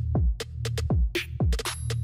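Electronic background music with a drum-machine beat: kick drums that drop in pitch, about two a second, with hi-hats and claps over a steady bass line.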